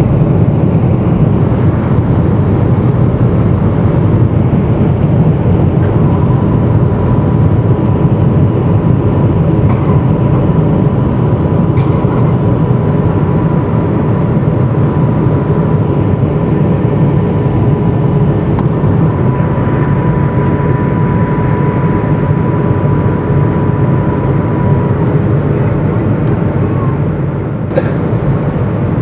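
Steady roar inside a Boeing 757-200 cabin by the wing on final approach: engine and airflow noise with the landing gear down and flaps extending. A steady high tone comes in about six seconds in and stops a few seconds before the end, and the roar eases slightly near the end.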